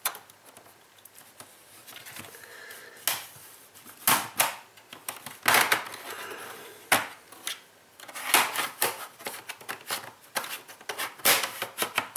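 Plastic snap clips of an Acer ES1-512 laptop's case clicking and cracking loose as a plastic pry tool is worked along the seam between the case halves. The clicks come irregularly, singly and in short crackling clusters, more of them in the second half.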